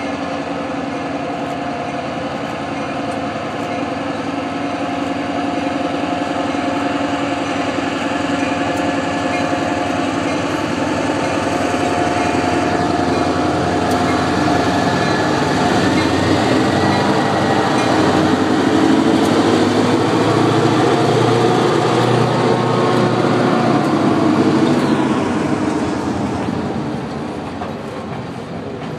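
New England Central Railroad diesel freight locomotives pulling out with their engines working, a steady throbbing drone that grows louder as they draw near, peaks, and begins to fade near the end.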